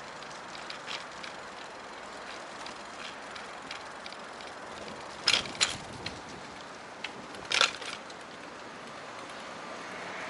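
Outdoor street ambience: a steady hum of distant traffic, broken by a few short, sharp crackles, two close together about halfway through and another a couple of seconds later.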